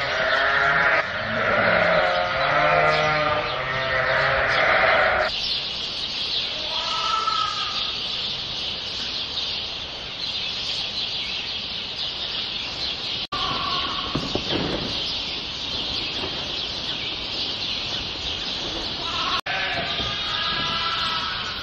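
Sheep and lambs bleating: a run of loud overlapping bleats for the first five seconds, then scattered single bleats. From about five seconds in there is also a steady high-pitched hiss.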